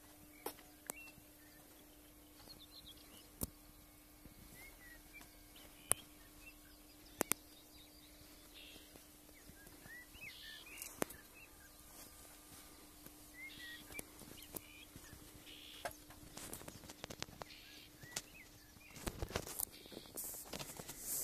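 Faint birds chirping now and then, with scattered sharp clicks and a steady low hum underneath. Louder rustling and knocks come in near the end.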